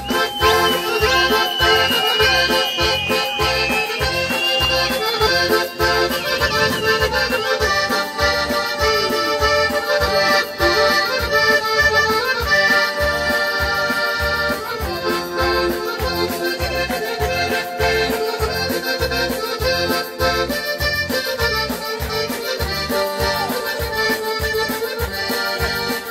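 Accordion playing a lively traditional Circassian dance tune over a steady beat of about two strokes a second.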